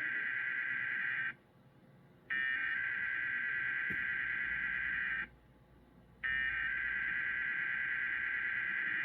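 Emergency Alert System digital data tones (the SAME header) in a required weekly test, sounding as a harsh, buzzing warble that repeats. One burst is already running and stops about a second in. Two more bursts follow, each about three seconds long with about a second's pause before it, and the last one is still going at the end.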